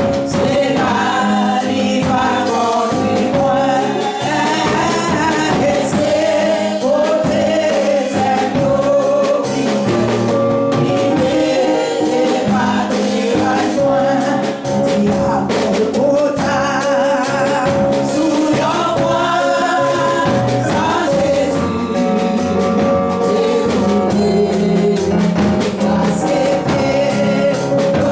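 Gospel music: voices singing over instrumental accompaniment, going on without a break.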